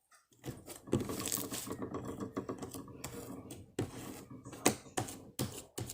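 Slime being squished and worked by hand, making a run of sticky clicks and crackling pops, with a few sharper snaps in the second half.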